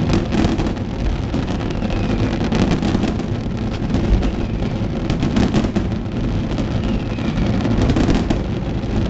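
Fireworks finale: a dense, continuous barrage of booms and crackling bursts, with a few faint falling whistles.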